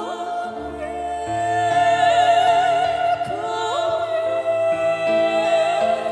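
Two women singing a slow song live in harmony. They hold long notes with vibrato and slide up into new notes, over a sustained backing whose low notes change in steps.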